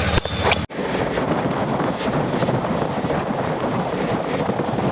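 Wind rushing over the microphone during an auto-rickshaw ride, with the vehicle's engine rumbling underneath. The sound breaks off for an instant a little under a second in, then runs on steadily.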